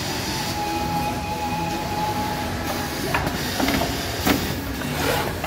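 AUTROY automatic pocket-setting sewing machine running, with a steady mechanical hum and a thin whine for the first couple of seconds. In the second half its mechanism gives several sharp clacks.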